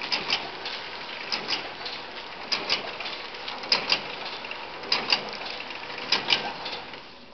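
Omori S-5600A-BXH horizontal pillow (flow) wrapping machine running its cycle: a steady mechanical hiss with a pair of sharp clacks about every 1.2 seconds. The running noise drops away near the end.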